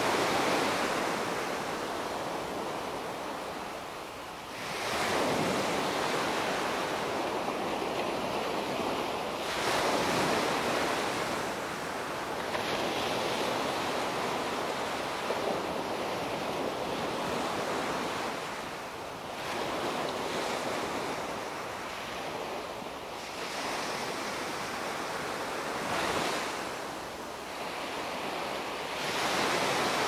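Small waves breaking and washing up a sandy shore, the surf swelling and easing every few seconds.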